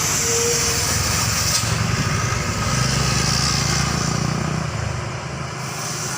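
A tour bus's diesel engine passing close by on the climb, the rumble swelling to its loudest about three to four seconds in, then easing off. A brief single horn note sounds right at the start.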